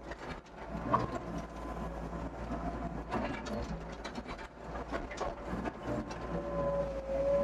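Doosan DX55 mini excavator running and digging: a steady diesel engine hum with several knocks and clanks from the bucket and arm, and a held whine starting about six seconds in.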